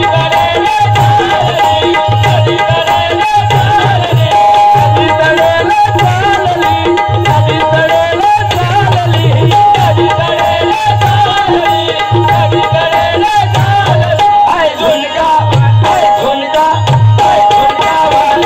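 Live folk-style band music: a harmonium melody over a steady, fast tabla and dholki rhythm.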